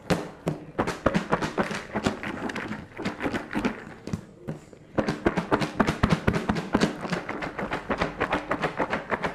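Popped popcorn tumbling and rattling inside a lidded plastic container as it is shaken by hand to coat it in caramel syrup: rapid, irregular taps and thuds. The shaking eases briefly about halfway through, then picks up again.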